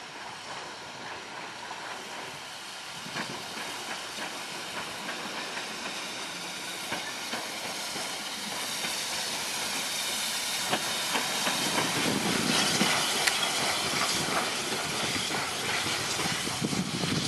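Polish Ol49 steam locomotive (Ol49-59) rolling slowly past, its steam hissing and growing louder as it draws close, with a few sharp clicks.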